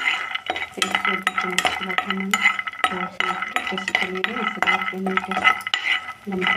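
Metal spatula scraping and clinking against a kadhai while stirring peanuts to dry-roast them, with repeated short clicks and scrapes.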